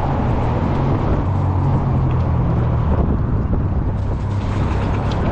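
Strong wind rumbling on the microphone with steady road and motor noise from a 48 V fat-tire e-bike riding in gusty wind, with a low engine-like hum underneath.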